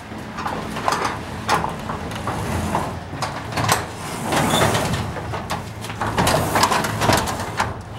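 Sectional garage door being raised, rumbling and rattling along its tracks with irregular knocks.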